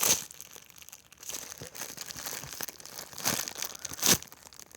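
Plastic packaging crinkling as a squishy in its bag is handled and squeezed, with louder crackles right at the start, a little past three seconds and just past four seconds.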